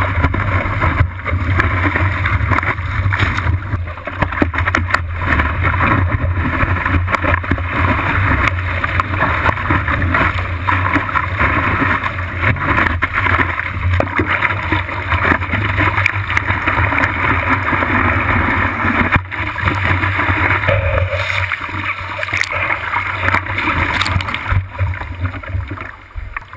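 Rushing and splashing whitewater against a surfboard's nose-mounted camera as the board rides broken waves, a loud continuous wash with a low rumble. The loudness dips briefly near the end.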